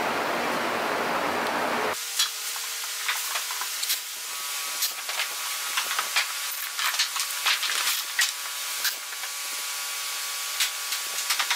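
A small wood fire burning with a steady rushing noise under a panel being heat-bent. After about two seconds this gives way to scattered knocks and clatters as wooden strips and metal clamps are handled on a plywood floor, over a faint steady hiss.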